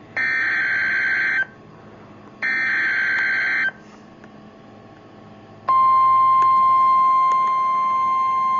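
Emergency Alert System SAME header: two screechy digital data bursts, each about a second long and a second apart. About six seconds in, a steady single-pitched alert tone starts, the NOAA Weather Radio warning alarm tone announcing a severe thunderstorm warning.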